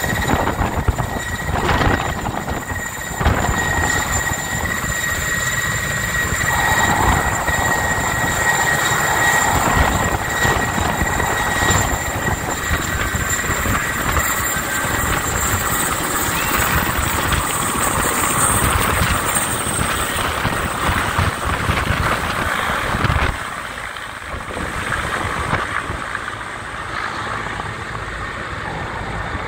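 Mil Mi-8 helicopter taking off and climbing away: the twin turboshaft engines whine with a steady high tone over loud rotor noise. The sound drops clearly about three quarters of the way through as the helicopter flies off.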